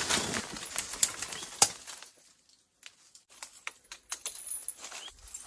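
Bicycle lock being fastened around the bike and a tree: about two seconds of rustling and handling, a short pause, then scattered light metallic clicks and rattles from the lock.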